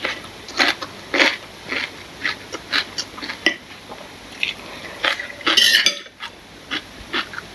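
Metal spoon and fork clinking and scraping against a ceramic bowl of bakso meatball soup, with slurping of noodles and broth. The longest, loudest slurp comes about five and a half seconds in.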